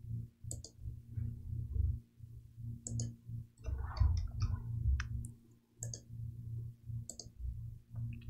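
Computer mouse clicking: about five sharp single clicks a second or so apart, over a low steady hum.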